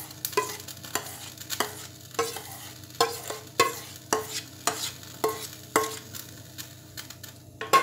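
Spatula scraping and knocking a thick milk-powder paste out of a steel bowl, a stroke about every half second or so, the bowl giving a short metallic ring with each knock.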